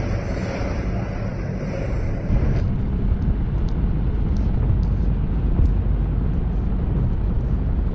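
Strong wind buffeting the microphone in a snowstorm, a steady low rumble. The sound changes and loses its hiss about two and a half seconds in.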